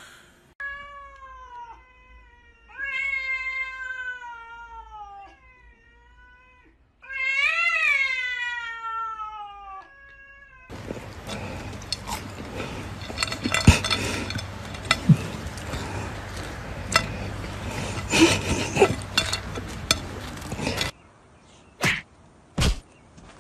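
Domestic cat giving several long, drawn-out meows, each falling in pitch, with the loudest near the middle of the first ten seconds. Then a stretch of rustling noise with scattered clicks, and a few sharp knocks near the end.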